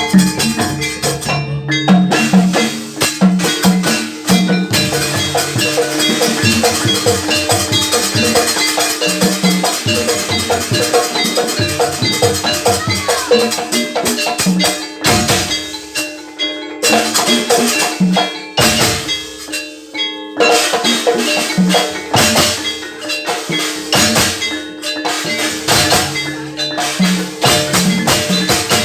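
Gamelan ensemble playing jaranan accompaniment: struck percussion and drums keep a steady beat, thinning briefly twice about halfway through.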